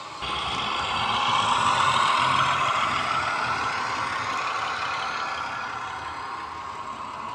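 Model Class 42 Warship diesel's ESU LokSound decoder playing a German V200 diesel-hydraulic engine sound through a small 26x14x7 mm speaker as the train runs by. The engine sound is loudest about two seconds in, then slowly fades as the locomotive draws away.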